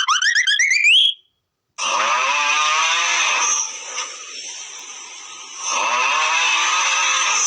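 Meme sound effects: a fast rising, whistle-like glide cuts off about a second in. After a short gap comes a loud, harsh, buzzing pitched sound that dips and rises in pitch, drops to a quieter hiss midway, and returns near the end.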